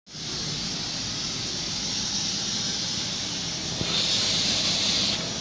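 Air-cooled water chiller running: a steady airy hiss over a low hum. The hiss grows louder for about a second, near the end.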